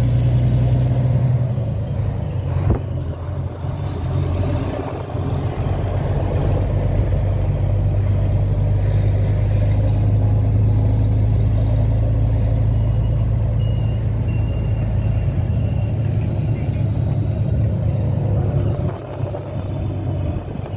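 Volvo NH 380 truck's diesel engine running steadily on the move, with a single sharp click about two and a half seconds in.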